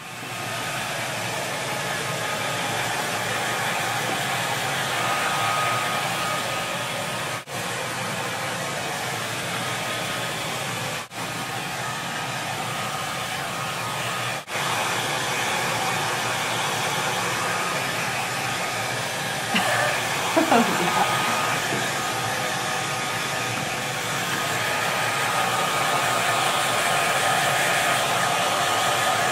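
Handheld hair dryer blowing steadily while drying a Great Dane's wet coat, with a faint steady whine in the airflow. The sound cuts out for a moment three times.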